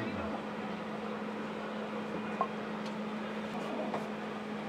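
Gas ring burner hissing steadily under a pan of oil that is heating but not yet sizzling, with a steady low hum beneath it and one faint tick about two and a half seconds in.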